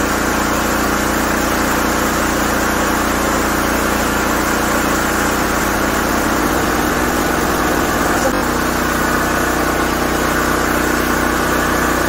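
Generac LP5500 propane generator's engine running steadily under a full electrical load, slightly under speed with the output at about 58 hertz. Its note shifts slightly about eight seconds in.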